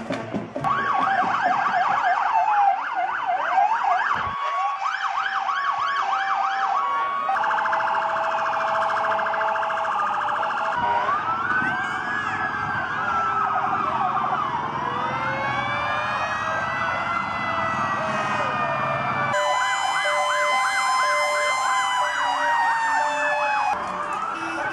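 Several emergency-vehicle sirens sound at once, overlapping throughout. They switch between a fast yelp, a slow rising-and-falling wail and a two-note hi-lo, with the pattern changing abruptly every few seconds.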